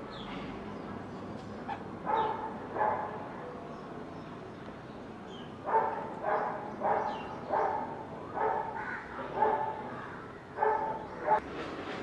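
A crow cawing in short, harsh calls: two about two seconds in, then a run of about eight caws roughly half a second apart.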